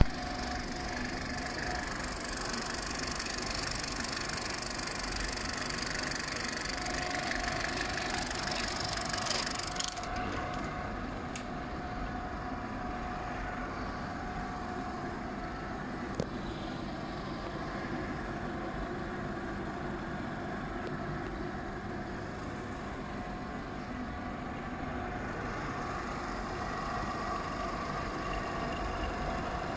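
Christie P35GPS 35mm film projector running, a steady mechanical whir with a held tone; the high hiss lessens about ten seconds in.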